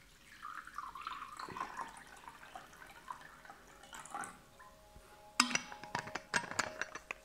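Water poured from a glass bottle into a ceramic bowl, trickling and splashing for about four seconds. A run of sharp clicks and knocks follows near the end.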